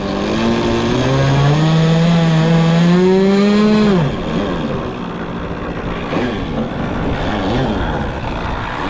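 Radio-controlled model airplane engine flying past, a high buzz. Its pitch climbs for about three seconds, then drops sharply as it passes about four seconds in, and fainter engine sound rises and falls as the plane circles.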